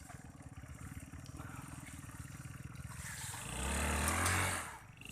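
Motorcycle engine running with a steady pulsing beat, then revved hard for about a second, roughly three and a half seconds in, before dropping off suddenly.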